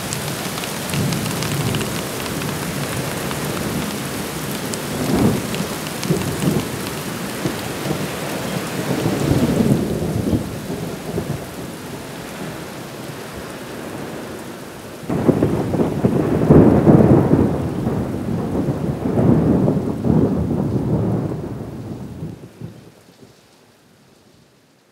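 Rain falling with repeated rolls of thunder. The loudest and longest rumbling comes past the middle, then the whole storm fades away near the end.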